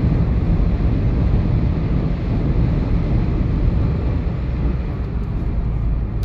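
Steady road noise inside a car's cabin as it cruises at speed: a low, even rumble of tyres on tarmac and wind on the body.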